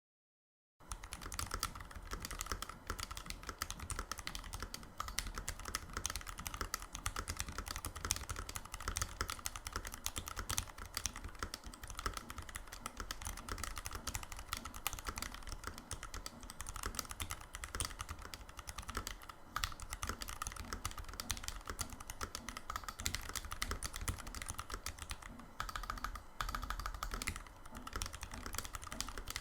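Typing sound test on a freshly built Novel Keys NK65 Entry Edition mechanical keyboard, fitted with lubed and filmed Zealios V2 tactile switches and GMK keycaps. Fast, continuous keystrokes start just under a second in, after a brief silence.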